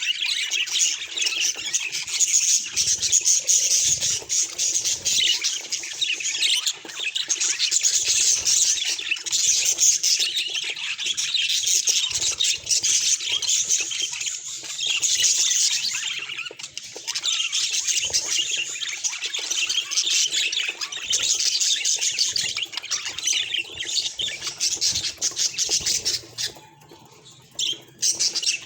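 Budgerigars chattering and chirping without pause in a dense run of rapid, high-pitched warbles, dropping away briefly a couple of seconds before the end.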